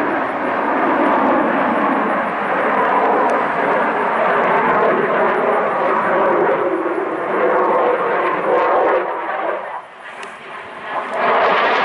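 F-16 fighter jet's engine noise as it flies overhead: a loud, steady rushing sound. The noise drops away sharply about ten seconds in, then comes back suddenly near the end.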